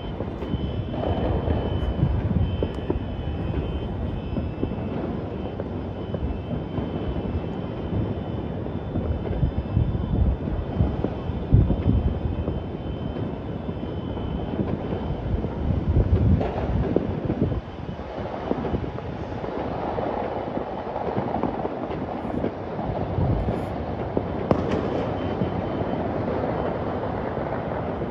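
A steady low rumble of outdoor city noise that swells now and then, with faint high tones in the first half.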